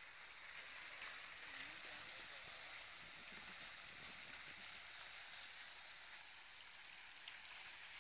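A steady hiss of noise, strongest in the upper range, with faint voices in the distance.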